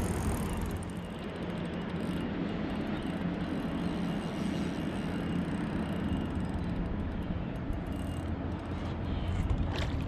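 Steady low rumbling noise, with a single short click near the end.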